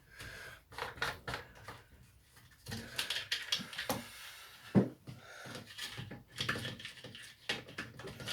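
Hand work on a strimmer's fuel lines: irregular small clicks, taps and scrapes of plastic and tools, with one sharper knock about five seconds in.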